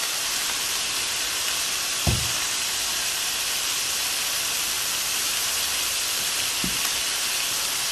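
Block of raw ground beef sizzling steadily in a hot frying pan, with two soft thumps, one about two seconds in and one near the end.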